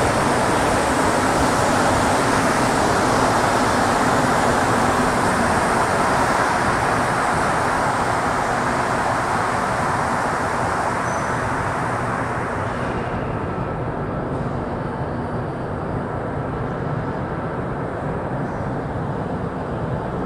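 Rubber-tyred MR-73 Montreal Metro train pulling into a station. Its loud running rush slowly eases as it slows, and the high hiss falls away about two-thirds of the way through. Faint steady tones are left as the train comes nearly to a stop.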